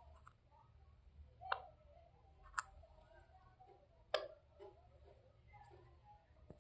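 Ringneck parrot moving about, making three sharp clicks over low room tone. The last click is the loudest.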